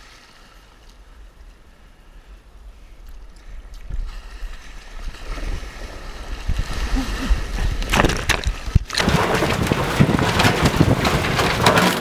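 Breaking surf washing around a kayak, with wind buffeting the microphone. It starts as a low rumble, grows from about four seconds in, and is loudest from about eight seconds, as whitewater rushes over and past the boat.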